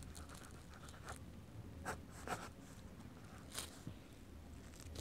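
Pen scratching across paper while writing a cursive signature, faint, with a few brief sharper strokes.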